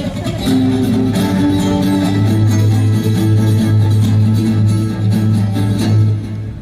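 Live indie-rock band playing an instrumental passage: guitars over a held bass note, the music dropping away near the end.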